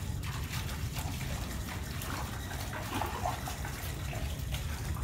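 Water swirling down a drain outlet in a whirlpool under a domed, perforated metal strainer: a steady gushing flow.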